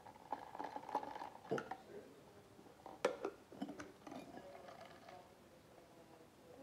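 Ice clinking in a YETI stainless steel mug and its straw lid being pressed on: a handful of sharp clicks and knocks, the loudest about three seconds in.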